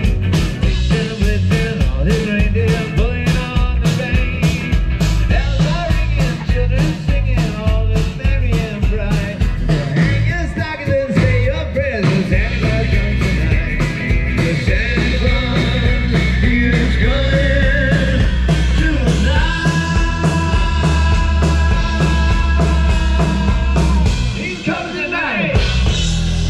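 Live rock band playing through a PA, with a steady drum beat and electric guitars, and long held notes in the second half.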